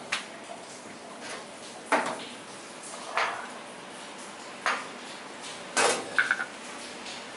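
Metal bar tools clinking and knocking: a stainless cocktail shaker tin and other bar gear handled and set down on a steel bar counter. About six separate short knocks, the last pair near the end ringing briefly.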